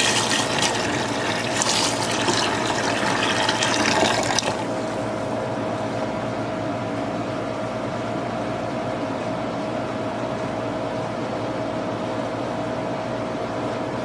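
Liquid being poured into a plastic tub and splashing over a pocket knife for about four and a half seconds. Then the pour stops, leaving a steady, quieter hiss with a faint hum.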